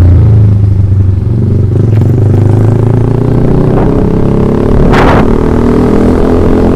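Yamaha MX King 150's single-cylinder four-stroke engine running through an ROB 1 aftermarket exhaust, its pitch climbing slowly in the second half. A short, sharp crackle comes about five seconds in.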